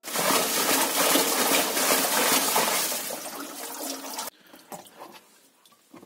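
Water sloshing and splashing inside a front-loading washing machine drum as it tumbles water-filled rubber gloves. It cuts off suddenly about four seconds in, leaving only faint knocks and handling noises.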